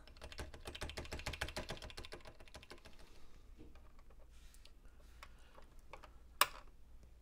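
Keys of a TRS-80 Model 100 keyboard clicking rapidly as the T key switch, just sprayed with contact cleaner, is pressed over and over. The clicking thins out after about three seconds, and a single sharper click comes about six seconds in.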